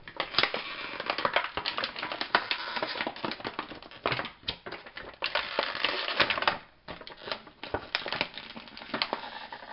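Toy packaging being handled and pulled open: dense, irregular crackling and clicking, with a short lull about two-thirds through.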